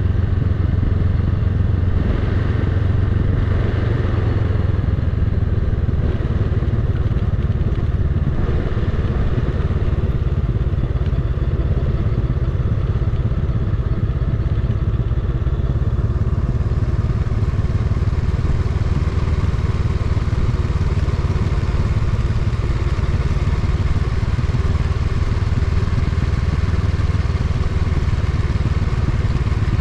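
Honda Rebel 500's parallel-twin engine running steadily as the motorcycle rolls slowly downhill, with a steady rush of wind and road noise.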